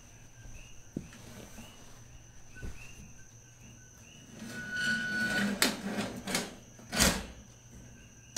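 Wire cage live trap being handled: a soft rustle, then from about four and a half seconds metal rattles and several sharp clanks as the trap's door is worked open, the loudest near the seven-second mark. Faint insect chirps repeat evenly in the background.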